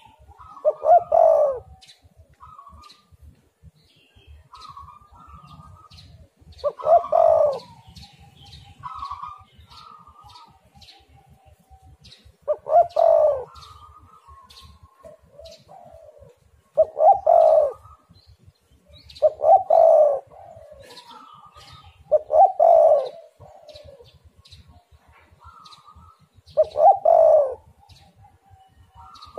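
Spotted dove cooing: seven loud coo phrases a few seconds apart, with softer, higher chirping notes between them.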